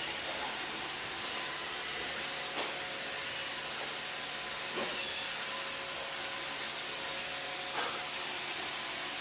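iRobot Roomba robot vacuum running with a steady whirring hiss, broken by three brief knocks.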